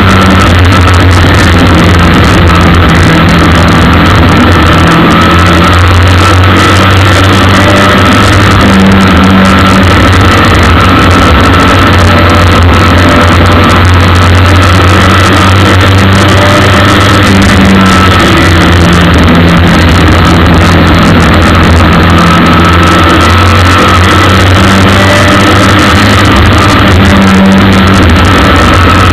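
Ministock race car's engine running hard as the car laps the oval, recorded by a camera inside the car: loud and overdriven throughout, with little change in pitch.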